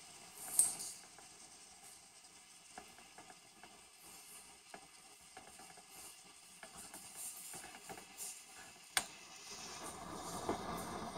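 French bulldog puppy moving about and nosing at a bug on a hard floor: faint scattered clicks and ticks, with a short hissy burst near the start and one sharper click a couple of seconds before the end.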